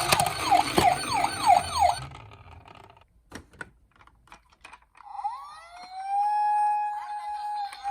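Toy emergency-vehicle minicars with electronic sirens: a small motor whirring under rapid falling siren chirps, about three a second, for the first two seconds. A few clicks follow, then about five seconds in a siren wail rises, holds, and begins to fall near the end.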